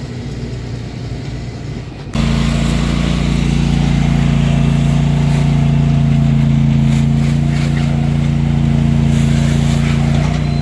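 Tractor engine running steadily. About two seconds in it suddenly becomes much louder and holds a strong, even drone.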